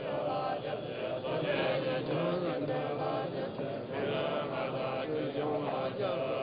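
Many voices of Tibetan Buddhist monks chanting prayers together, a dense, overlapping recitation at a steady level.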